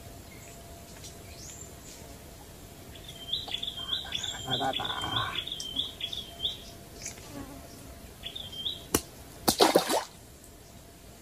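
Forest birds calling: one bird gives a rapid series of about nine short high notes lasting a few seconds, and another gives thin, very high down-curving whistles. Near the end there is a sharp click, then a brief loud rustle close by.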